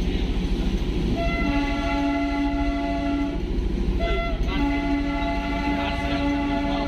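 Darjeeling Himalayan Railway toy train's horn sounding: one long blast, a brief toot, then a second long blast that is still going at the end. Underneath is the steady low rumble of the train running.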